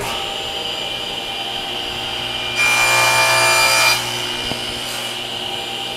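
Table saw running steadily, its blade slicing through a half-inch wooden dowel on a crosscut sled for about a second and a half in the middle, where the sound grows louder and harsher, then back to the free-running blade.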